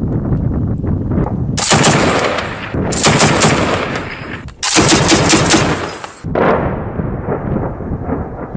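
Heavy machine gun firing three bursts of rapid automatic fire, each a second or so long, with a low rumble before and after.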